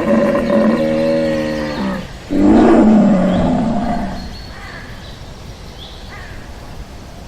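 Animal sound effects: a long, steady-pitched call ends about two seconds in, followed by a loud roar that fades away over about two seconds.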